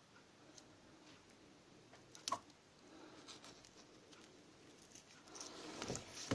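Faint handling of a blank key and a strip of clear adhesive tape as the tape is pressed and smoothed onto the key, with one small click about two seconds in. Louder rustling of tape and key near the end as the key is picked up.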